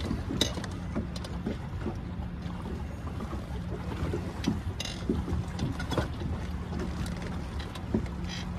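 Boat on a river: a steady low motor hum, with scattered small knocks.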